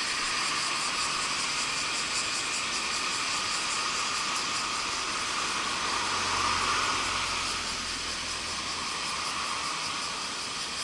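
Steady chorus of summer insects, a dense hiss with a fast pulsing in its highest part. A low rumble swells about six seconds in and fades.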